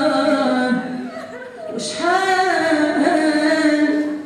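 A single voice singing long held notes unaccompanied: one phrase fades out about a second in, and a new one begins about two seconds in and is held.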